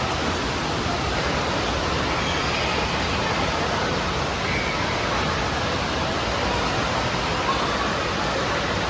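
Steady rush of splashing, falling water in an indoor water park, an even wash of noise with no breaks.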